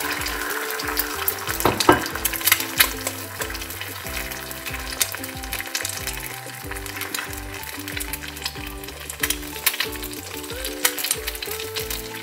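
Eggs frying in hot coconut oil in a non-stick pan, a steady sizzle full of small crackles and spits. Background music plays underneath.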